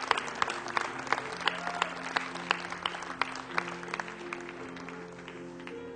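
A church congregation clapping in praise over sustained instrumental chords. The applause thins out and fades near the end while the chords hold on.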